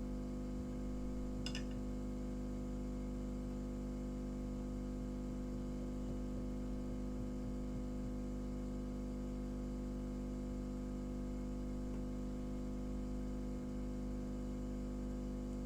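Steady electrical hum from a hot air rework station running while it heats solder on a circuit board, with one faint click about a second and a half in.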